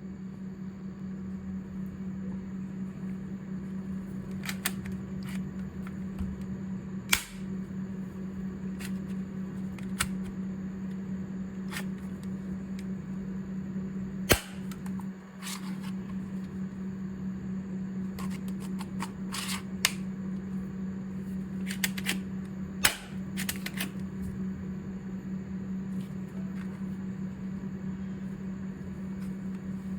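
Metal toy airsoft pistol being worked and dry-fired: more than a dozen sharp clicks and snaps at irregular intervals, a few of them much louder than the rest, over a steady low hum.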